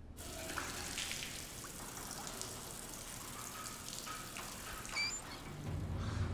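Water running from a tap into a tiled trough sink while a man splashes it onto his face with cupped hands.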